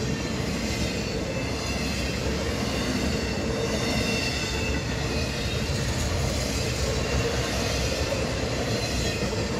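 Empty freight flatcars rolling past at steady speed: a continuous rumble and clatter of steel wheels on rail, with a thin, high wheel squeal running over it.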